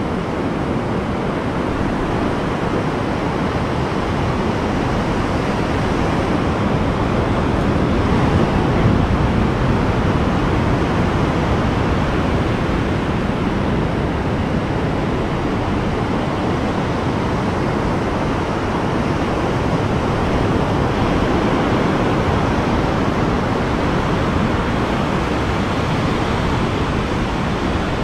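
Ocean surf breaking and washing up a sandy beach: a steady rush of waves that swells slightly about nine seconds in.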